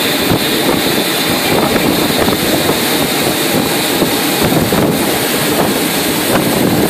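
Airbus A319's twin jet engines running steadily as the airliner passes low along the runway during a very late go-around. Gusting wind buffets the microphone.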